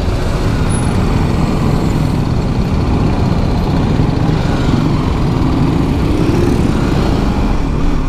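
BMW G310 GS's single-cylinder engine running steadily as the motorcycle rides off slowly through street traffic.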